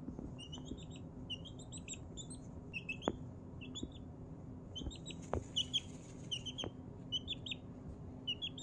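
Four-week-old Blue Ameraucana chick making its soft, contented 'happy noises' as it settles to nap: short high peeps and trills in small clusters, a couple every second. A few faint sharp clicks come in between.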